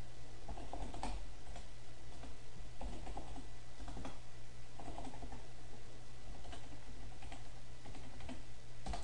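Typing on a computer keyboard: irregular runs of key clicks as text is entered, over a steady low hum.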